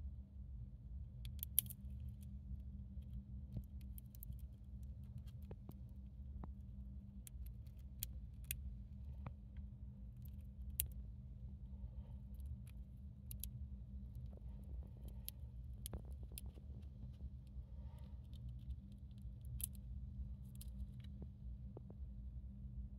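Dwarf hamster nibbling a seed held in its paws: scattered faint, crisp clicks and cracks at irregular intervals, over a steady low hum.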